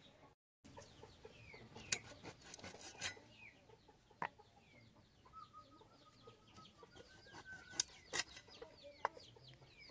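Chickens clucking faintly in short calls, with a few sharp knocks.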